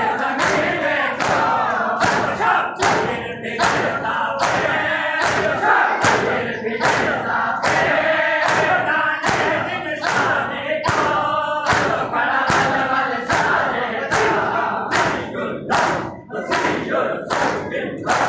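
Shia mourners doing matam: a crowd of men striking their chests with open hands in unison about twice a second, keeping time with a lament chanted by many voices together.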